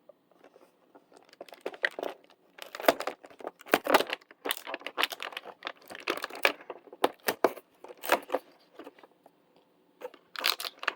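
Packaging of a fidget toy advent calendar being torn open and crinkled by hand: irregular tearing and crinkling, busiest through the first two-thirds, then a few scattered sounds and one last burst near the end.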